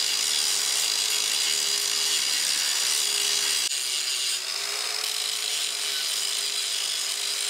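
Electric angle grinder running steadily against steel, grinding down the rivet heads on a sickle bar mower knife: a constant motor whine under a dense grinding hiss. The rivets are being ground flush because they still stood proud after being hammered down.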